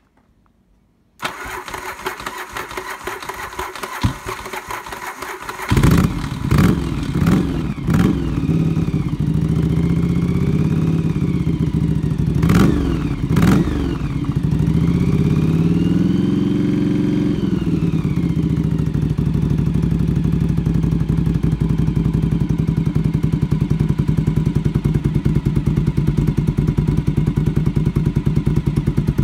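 A freshly rebuilt 1981 Yamaha XV750 Special's air-cooled V-twin, started for the first time: it cranks on the electric starter for about four seconds, catches about six seconds in, takes a few quick throttle blips and one longer rev that rises and falls, then settles into a steady idle.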